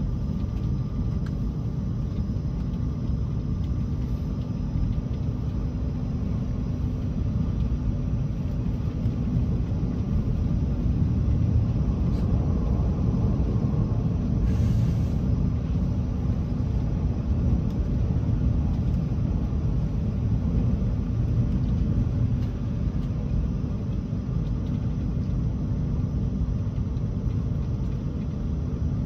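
Renfe Class S120 high-speed train running, a steady low rumble that swells slightly in the middle, with a brief hiss about halfway through.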